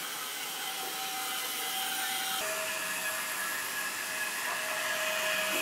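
Small electric motor of a homemade cardboard toy train running: a steady whirring whine over a hiss, which drops a little in pitch about two and a half seconds in and slowly grows louder.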